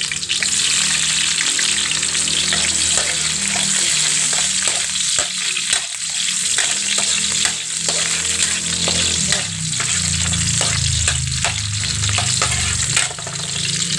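Garlic and onion sautéing in hot cooking oil: a steady, loud sizzle, with a utensil stirring and clicking against the pan throughout.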